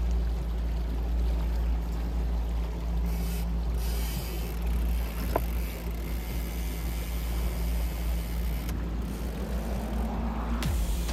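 Boat's outboard motor running steadily at trolling speed, a low rumble with wind and water noise.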